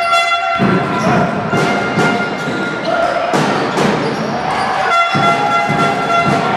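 Basketball game on a hardwood court: the ball bouncing and crowd noise from the stands, with two long high squeals, one right at the start and one about five seconds in.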